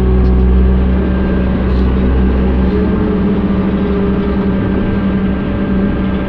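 Excavator's diesel engine and hydraulics running steadily under load while swinging a loaded bucket of asphalt, heard from inside the cab. The deep rumble eases slightly about three seconds in.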